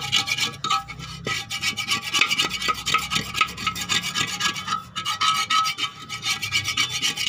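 A thin metal tool scraping moss and old crust off the outside of an old clay flower pot in rapid, repeated rasping strokes.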